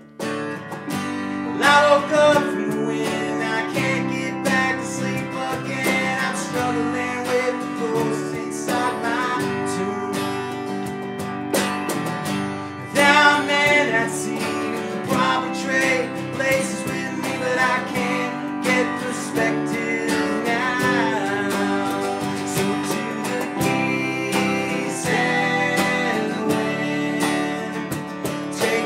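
A small band playing live: a strummed acoustic guitar over electric bass, keyboard and cajón. The music comes in right at the start after a brief lull.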